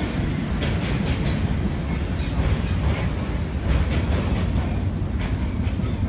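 Deutsche Bahn Intercity train rolling past on the steel railway bridge: a steady, loud rumble of wheels on rails with a few faint clicks.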